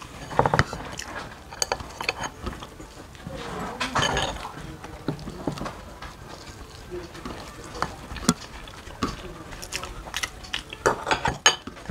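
Two people eating by hand: chewing and mouth sounds, with scattered sharp clicks of a metal spoon against ceramic bowls and plates.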